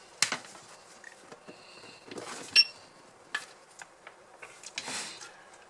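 A few sharp clicks and knocks from handling a soldering station's power plug, cables and iron holder on a tabletop. The loudest is a single sharp click about two and a half seconds in, with a brief high ring.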